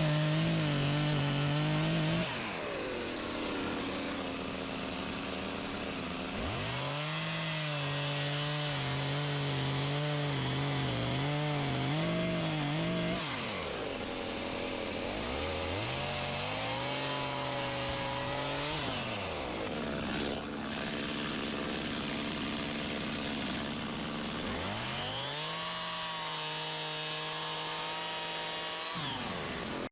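Chainsaw revved to full throttle four times, each spell lasting a few seconds, its pitch sliding up on each rev and falling back to idle between them, as when cutting or hewing a log.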